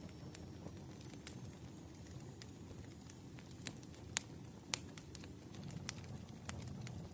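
Wood fire burning: a steady low rumble of flames with scattered sharp pops and crackles, the two loudest a little past the middle.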